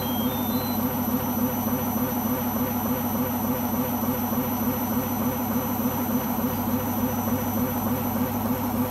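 Beko washing machine drum spinning at speed: a loud, steady drone with a fast, rough vibration. It is a strange noise that the owner blames on the rubber behind the drum.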